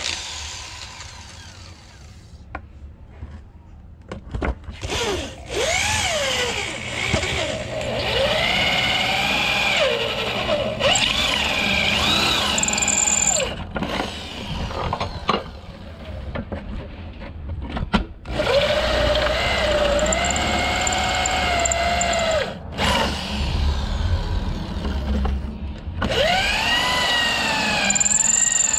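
Electric drill running in several long runs, each stopping abruptly, its whine rising and sagging in pitch.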